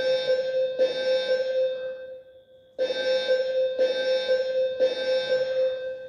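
Building fire alarm sounding its evacuation signal: a steady low-pitched tone in the temporal-three pattern, three one-second tones, a pause of about a second, then three more. It is the alert tone of a voice evacuation system, whose spoken message follows the tones.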